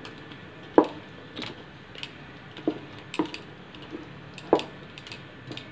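Wooden spatula stirring chicken in a thick cashew-and-yoghurt gravy in a metal pan, knocking against the pan's side and bottom in about seven irregular knocks.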